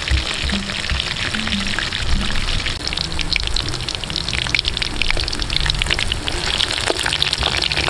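Battered mushrooms deep-frying in a wok of hot oil: a dense sizzling crackle that grows busier about three seconds in.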